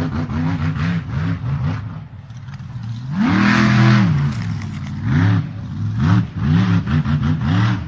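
Car engine revving sounds in quick, repeated rises and falls of pitch, with one longer, louder rev about three seconds in.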